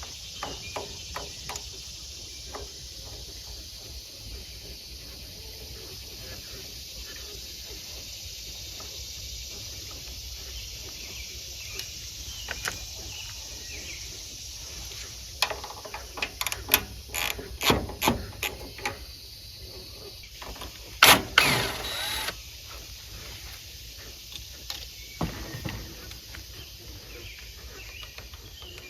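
Hands and tools working on a small engine's air cleaner cover and carburetor: scattered clicks and knocks, a quick run of sharp clicks around the middle, and one brief loud clatter about two-thirds of the way through. Under it all is a steady low outdoor hum.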